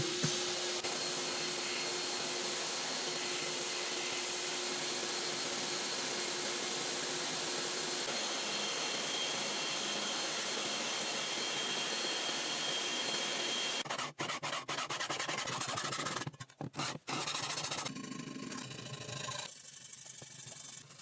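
Steady abrasive hiss of a knife's steel blade being ground or sanded. About fourteen seconds in, it breaks off and resumes several times as the blade is lifted and set back down, and it is quieter near the end.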